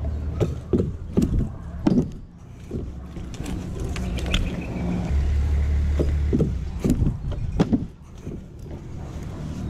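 BMX bike being ridden on concrete obstacles: a string of sharp knocks and clanks from the bike hitting and landing, over a steady low rumble.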